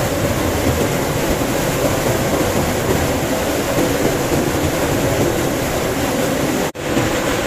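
Flour mill grain-cleaning machinery running: a loud, steady mechanical rattle and hum from vibrating separators, with grain pouring through the discharge chutes. It cuts out for an instant near the end.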